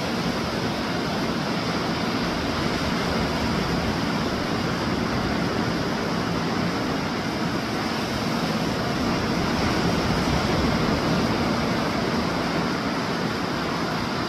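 Gulf surf breaking on the beach: a steady rush of waves that swells a little near the end.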